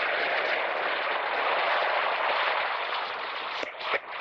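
Steady rushing noise of surf and wind on the beach, with two short sharp clicks near the end.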